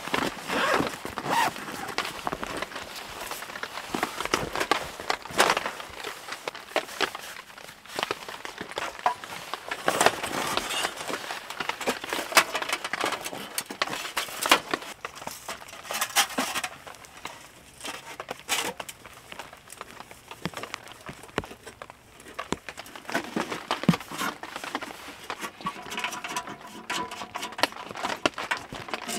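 A folding sheet-metal wood stove being unpacked from its fabric carry bag and put together, with the bag rustling and the thin metal panels clinking, knocking and scraping in irregular bursts. A few brief metallic rings come near the end.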